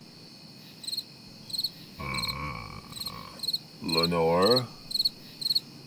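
Crickets chirping in a steady night chorus, a short high chirp repeating evenly about two to three times a second. A brief wavering vocal sound comes about four seconds in.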